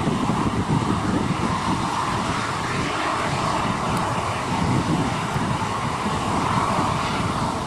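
Civil airliner engines running steadily at an airport, with gusty wind buffeting the microphone underneath.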